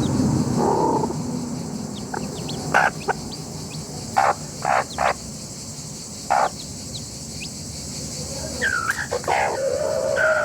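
Chickens clucking in short, separate calls, then a longer drawn-out call with a wavering pitch building near the end. A low rumble in the background fades away over the first seconds.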